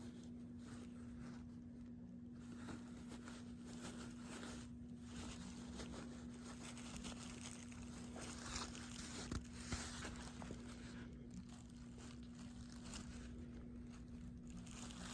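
Quiet room tone: a steady low hum with faint rustling and a couple of soft ticks about nine to ten seconds in.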